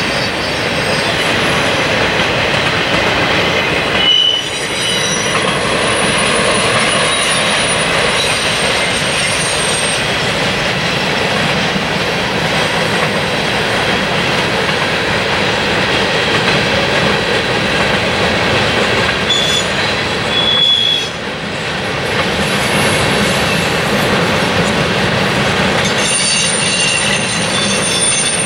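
Cars of a passing mixed freight train (refrigerator cars, then empty centerbeam flatcars and covered hoppers) rolling on the rails: a steady rumble of wheels on track. Brief high-pitched wheel squeals break through now and then, around four seconds in, around twenty seconds in and near the end.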